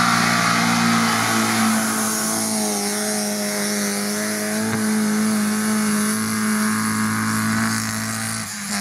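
Lada Niva's engine held at high revs as the 4x4 drives hard through deep mud, running steadily with small rises and falls and easing off a little near the end.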